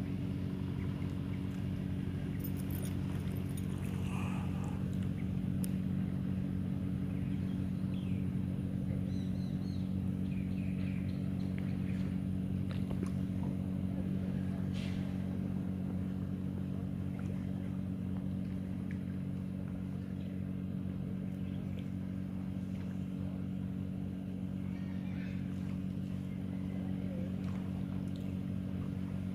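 A small engine running steadily at an even speed, a low hum that does not change.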